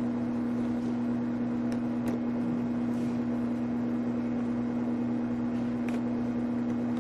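A steady low electrical hum, unchanging throughout, with a few faint clicks.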